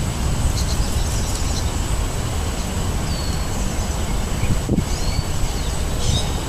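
Wind buffeting the microphone with a steady low rumble, while small songbirds give several short, high chirps and calls.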